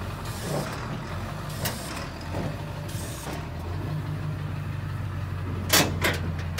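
A truck engine idling with a steady low hum, with two sharp knocks in quick succession near the end.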